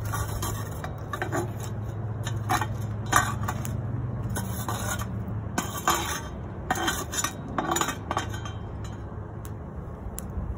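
Metal coal shovel scraping hot coals and ash off the cast-iron lid of a Dutch oven in a run of short scrapes and clinks, which thin out and stop about eight seconds in.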